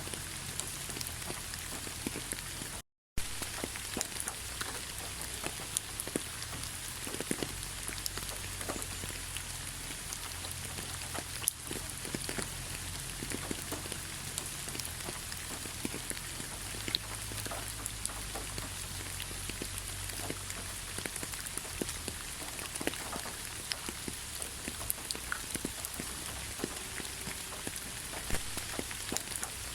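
Steady rain, an even hiss with many separate drops clicking as they land. The sound cuts out completely for a moment about three seconds in.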